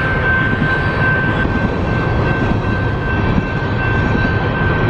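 Long freight train passing, its railcars rumbling steadily on the track, with a sustained high-pitched squeal held throughout.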